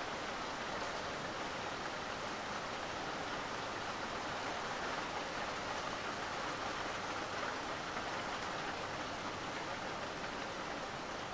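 Steady rain falling, an even hiss that holds its level throughout, with no thunderclap.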